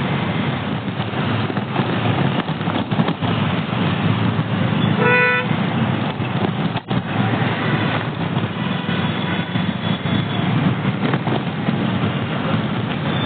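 Steady road traffic noise, with one short vehicle horn toot about five seconds in.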